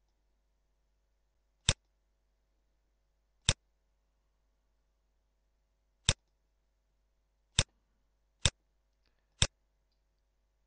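Six sharp computer mouse clicks, spaced unevenly about one to two and a half seconds apart.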